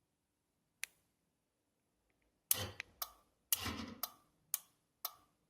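Trunk lock actuator and its relay clicking and clunking as the keyless entry remote triggers the trunk release: one sharp click about a second in, then a run of six clicks and clunks about half a second apart. The trunk release is working through the newly wired relay.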